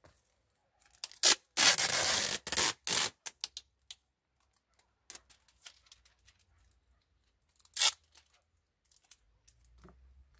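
Clear plastic film crinkling and rustling, with a loud stretch of crackling starting about a second in and lasting some two seconds, then a single short burst later.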